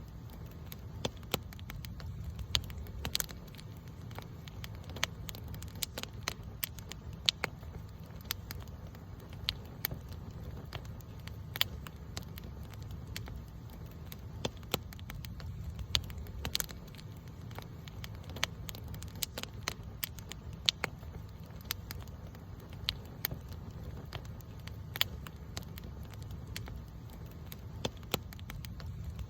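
Campfire burning, with sharp irregular crackles and pops from the burning wood over a steady low rumble of the flames.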